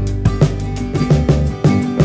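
Background music: an upbeat instrumental track with plucked guitar-like notes, a bass line and a steady beat.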